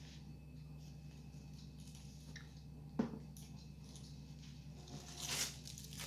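Thin plastic carrier bag rustling and crinkling as it is handled, loudest near the end, with one sharp knock about three seconds in. A steady low hum runs underneath.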